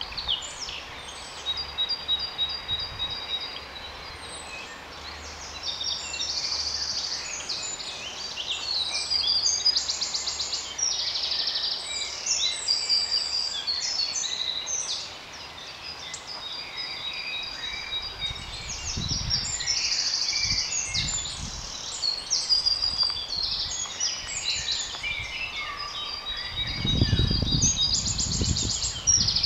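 A chorus of several songbirds singing at once, with overlapping chirps, trills and whistles. Low rumbling noise comes and goes in the last third and is strongest near the end.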